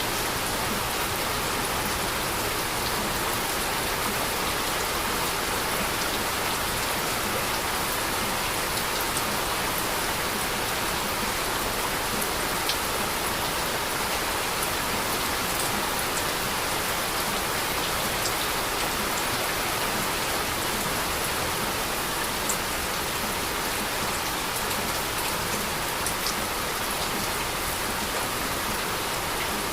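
Heavy rain falling steadily, an even hiss with a few sharper drop ticks here and there.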